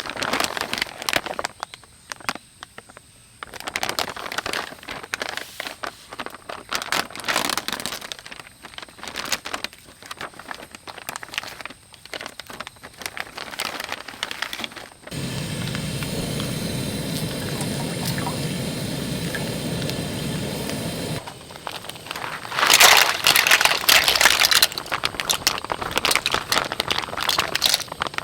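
Camp cooking and food-preparation handling: scattered scrapes, clicks and crackles. In the middle there is about six seconds of a steady rush, like water or liquid being poured or running.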